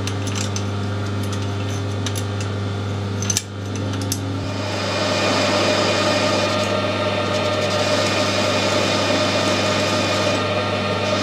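Metal lathe running with a steady motor hum, with a few spanner clicks and a knock as the compound slide is set. From about five seconds in, a carbide tool cuts a taper on a stainless steel bar, adding a louder, hissy cutting noise with a steady tone.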